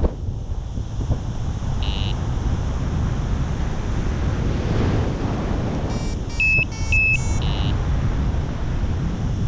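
Wind rushing over the microphone in flight under a paraglider. Short electronic beeps cut through: one about two seconds in, then a quick cluster of several around six to seven and a half seconds.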